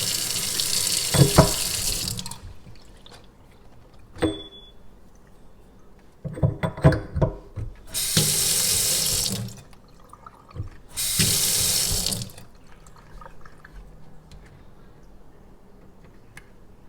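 Water running from a Glacier Bay faucet, turned on and off three times: for about two seconds at the start, then in two shorter spells around the middle. Between the spells come a few sharp clicks and knocks from the handles and fittings being worked. The faucet has just had its cartridges replaced and is being run to check for leaks.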